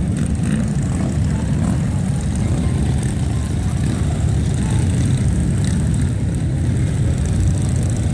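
Several touring motorcycles riding slowly past in a line, their engines running together in a steady, low, deep drone.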